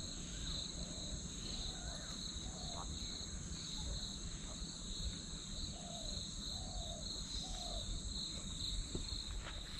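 Field insects, crickets or similar, chirring steadily in a high, pulsing trill, with a few short low calls scattered through it and a low rumble underneath.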